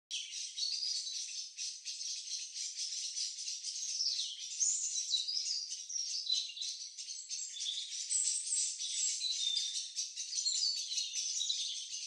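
Several songbirds singing at once in woodland: a dense, continuous chorus of overlapping high chirps, whistled slurs and trills, with no low sounds at all.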